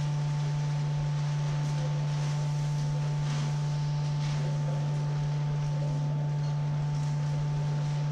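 A steady, loud, low drone tone with a fainter higher tone above it, held unchanged throughout.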